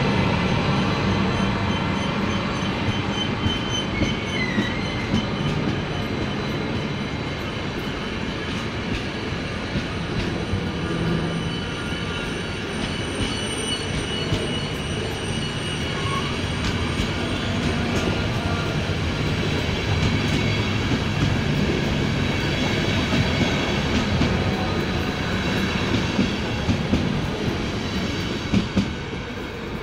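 ÖBB passenger train's coaches running past on the track: a steady rumble of wheels on rail with frequent clicks over the rail joints, fading near the end as the last coach goes by.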